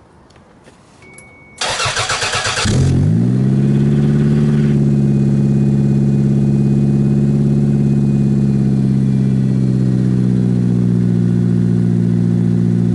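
Toyota MR2 (SW21) cold start: the starter cranks for about a second, the engine catches, briefly picks up, and settles straight into a steady idle. The exhaust is loud at idle, too loud for the street by the owner's reckoning.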